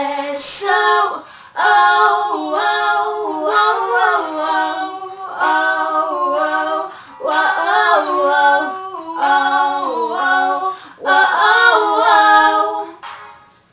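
Two teenage girls' voices singing a melodic passage together without words being recognised, in several phrases with short breaks between them, fading out near the end.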